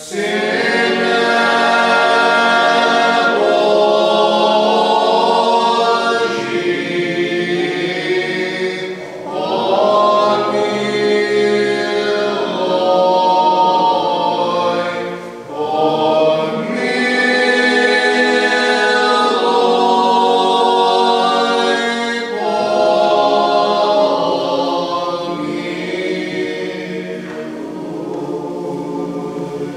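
A choir sings Orthodox liturgical chant, unaccompanied and in several voices. It moves phrase by phrase, with short breaks about every six seconds.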